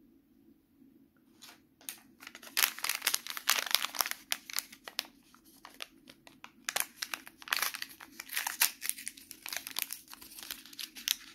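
Plastic wrapper of a Coles Stikeez toy pack being torn open and crinkled by hand: a dense run of sharp crackling and rustling that starts about two seconds in.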